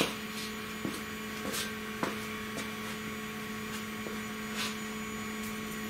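Stepper motor of a 3018 CNC router driving the X axis at a constant 500 mm/min feed: a steady whine held on one pitch, with a few faint clicks.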